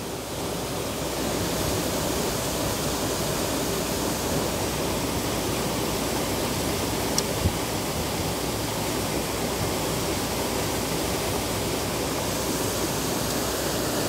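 Steady, even rush of a waterfall, with no breaks. A small click and a soft knock about seven seconds in.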